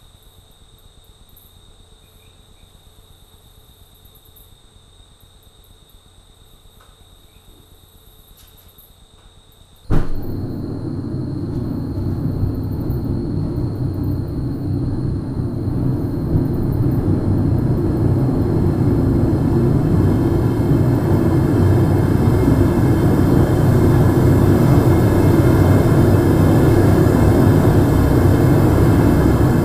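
Homemade propane burner lighting with a sudden whoosh about ten seconds in. It then runs with a steady rushing flame noise that grows louder over the next dozen seconds as the burner comes up to full fire in the furnace.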